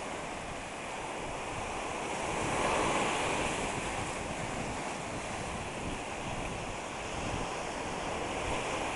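Sea surf breaking on a rocky shoreline and washing up the sand: a steady rush of waves that swells about three seconds in.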